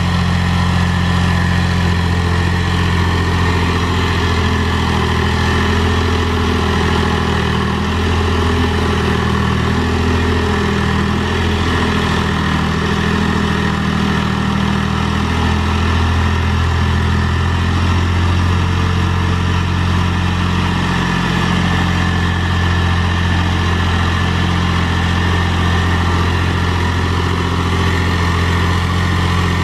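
Mahindra 3525 tractor's three-cylinder diesel engine running steadily as it works a box blade through dirt, its note shifting slightly partway through.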